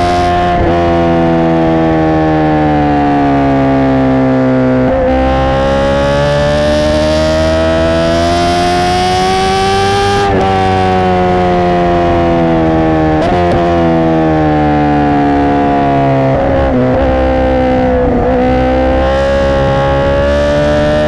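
Honda CBR1000RR Fireblade's inline-four engine running loud through an aftermarket racing exhaust. Its pitch rises and falls slowly with the throttle, with a few abrupt breaks: about 5 s in, about 10 s in, and several times near the end.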